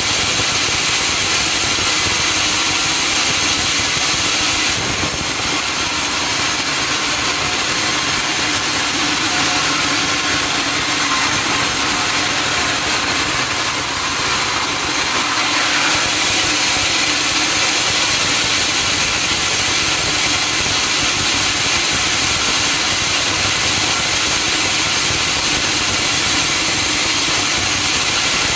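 Sawmill saw running steadily as it cuts through a log, a loud, even hissing whine.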